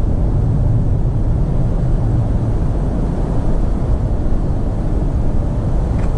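Steady low rumble of wind buffeting the camera's microphone.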